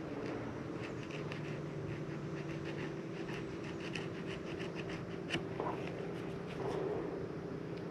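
Fillet knife scraping and cutting along a sail catfish on a metal table: a run of faint, irregular scratches and ticks over a steady low hum.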